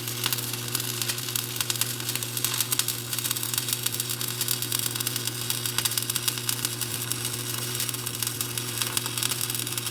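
Shielded metal arc (stick) welding with a 7018 electrode: a steady crackling sizzle from the arc, over a steady low hum.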